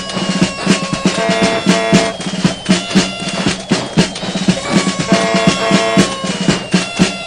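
Music with a steady, driving drum beat and sustained melody notes over it.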